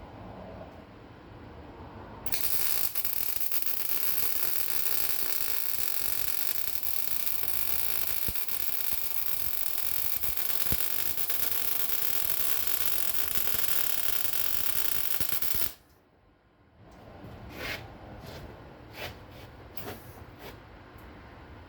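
Arc welder running a bead on steel: a steady crackling hiss for about thirteen seconds that stops suddenly, followed by a few sharp clicks.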